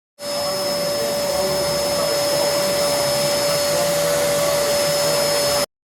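Household vacuum cleaner running steadily: a loud rushing hiss with a steady whine on top. It cuts in abruptly at the start and is cut off sharply after about five and a half seconds.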